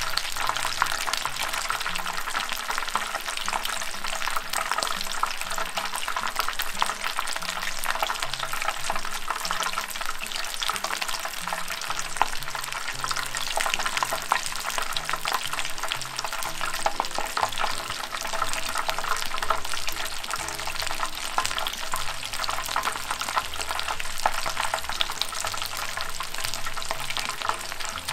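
Two batter-coated shrimp deep-frying in hot oil as tempura: a steady, dense crackling sizzle. The strong spattering comes from the shrimp battered without a dusting of flour, whose moisture is evaporating rapidly.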